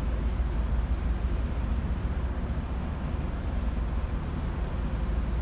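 Steady low rumble and hiss of a ship's open-deck ambience, even throughout with no distinct events.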